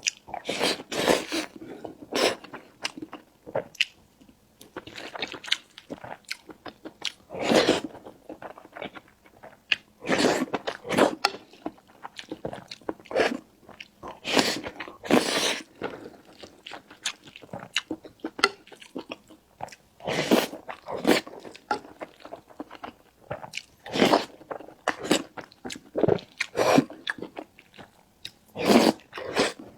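Close-miked eating sounds: bites, crunching and chewing in irregular bursts, with short pauses between mouthfuls.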